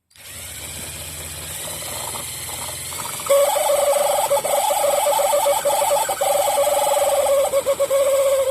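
Kawasaki Mach H2 speedometer spun on a rotation test, running with a low hum, then from about three seconds in a loud, wavering squeal that stops suddenly near the end. The squeal is the abnormal noise of the speedometer shaft running dry of oil.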